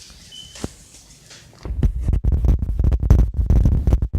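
A single click about half a second in, then from about one and a half seconds in, loud low rubbing and repeated bumping close to the microphone: hands handling and pressing Play-Doh on the table.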